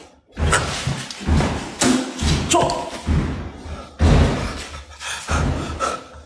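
A series of heavy thumps and bangs, one every half second to a second, with a man's brief exclamation about two and a half seconds in.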